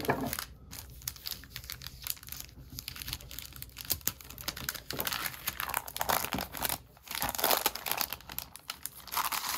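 Clear plastic sleeve crinkling in irregular quick crackles as hands handle it and slit it open with a folding knife.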